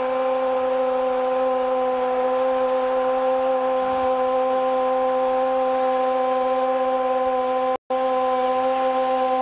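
A steady, unwavering horn-like tone held at one pitch over a hissing haze, cutting out for an instant near the end.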